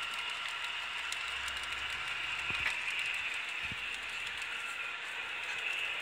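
HO-scale model train running on the track: an Atlas Dash 8-40CW locomotive's motor and gears whir steadily, with fine clicking of wheels on rail. Two soft low thumps come a little before and after the midpoint.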